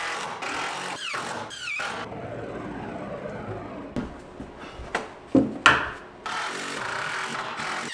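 Cordless power driver running screws into wood in several short runs, with a few sharp knocks partway through.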